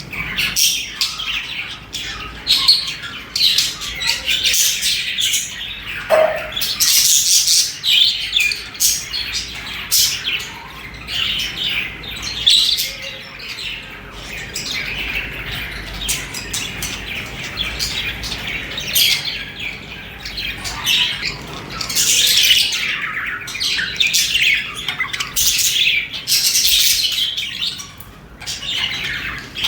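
Budgerigars chirping and warbling continuously, a dense run of rapid, high-pitched chirps with occasional squawks.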